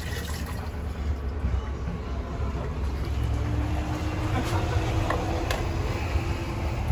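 A steady low rumble that grows a little stronger after the first couple of seconds. Over it come a few light clicks of a thin plastic bowl being handled and stacked, about halfway through.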